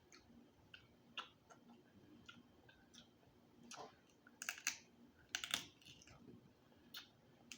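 Quiet eating sounds of a seafood boil: scattered short wet clicks and smacks at an uneven pace, a few louder ones near the middle.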